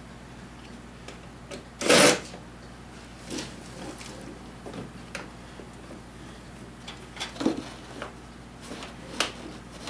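Hand work on a vehicle dashboard: scattered clicks and knocks of tools and parts being handled, with one louder, harsher rattle about two seconds in.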